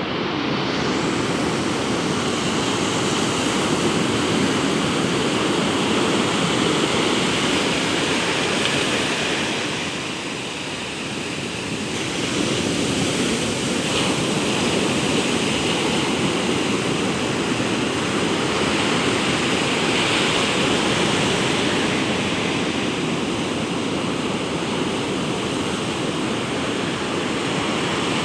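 Ocean surf breaking and washing on a beach: a continuous rushing of waves that eases briefly about a third of the way through, then builds again.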